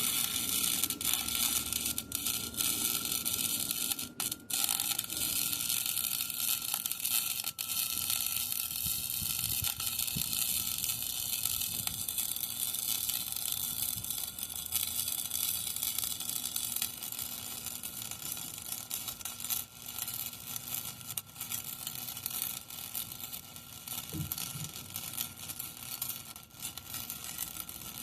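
Arc welding on a steel safety post: a continuous crackling hiss from the arc, with a brief break about four seconds in.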